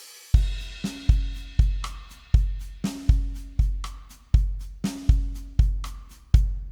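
Drum-kit beat: a heavy bass drum and snare in a repeating pattern under a steady hi-hat ticking several times a second, opening on a cymbal crash. The beat stops just at the end.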